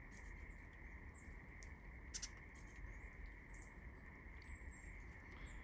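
Faint, steady high chirring of crickets, with scattered short, high chirps from small birds.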